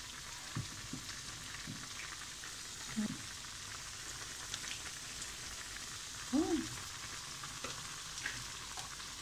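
Steady sizzle of sliced onion frying in a pan, with a few soft knocks and scrapes of a silicone spatula against a pot of buckwheat. A short pitched squeak comes about six and a half seconds in.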